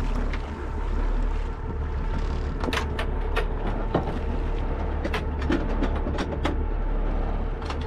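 Boat engine running with a steady low rumble, and from about three seconds in a run of sharp clicks and knocks.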